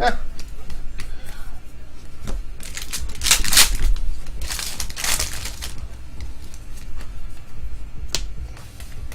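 Trading cards being handled and flipped through: two longer swishing slides of card stock a few seconds in, then a few light sharp clicks near the end.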